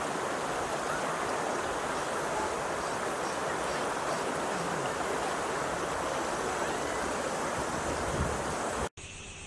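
Steady rushing of flowing water, like a stream or small waterfall, an even unbroken hiss; it cuts off suddenly near the end.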